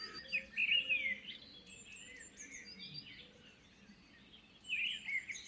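Faint high-pitched bird chirping: short twittering chirps, many sliding downward, coming and going, with louder bursts about half a second in and again near the end.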